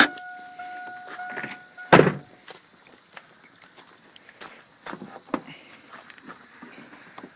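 A 1999 Chevy Silverado's interior warning chime pinging steadily, cut off about two seconds in by the door slamming shut with a thunk; then faint footsteps and a few small clicks as the hood is released.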